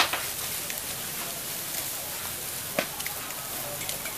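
Pork and chicken barbecue skewers sizzling on a charcoal street grill: a steady hiss with scattered crackles. A sharp click comes right at the start and another about three seconds in.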